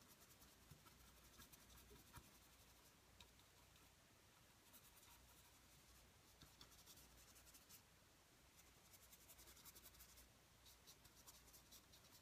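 Faint scratching of an oil-paint brush stroking across the painting surface, in several short spells of rapid fine ticks, over a low hum of room tone.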